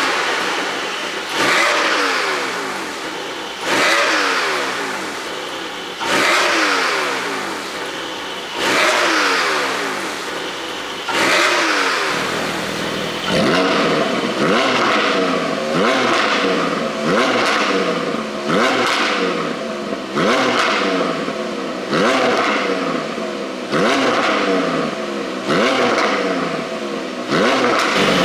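Porsche 718 Boxster GTS 4.0's flat-six being blipped again and again, each rev snapping up and falling away with exhaust pops and crackles on the overrun from a pop-and-crackle ECU tune. The blips come about every two seconds at first, then quicker, roughly every second, from about halfway through.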